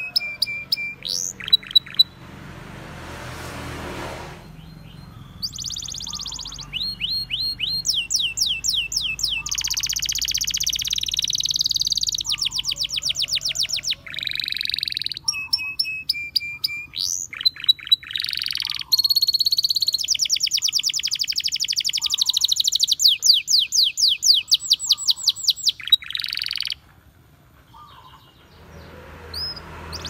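Domestic canary singing a long, loud song of fast trills, each a quick run of repeated rising notes, switching from one phrase to the next every second or two, with a short pause near the end.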